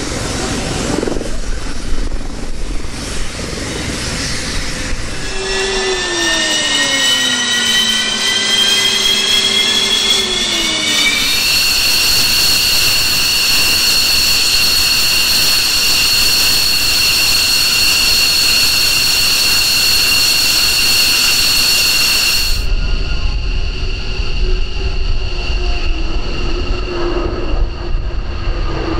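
A JASDF F-15J fighter's Pratt & Whitney F100 turbofans during engine start. A high whine climbs in pitch for several seconds as the engine spools up, then holds steady. About two-thirds of the way in, the highest part of the whine falls away and a deeper rumble grows.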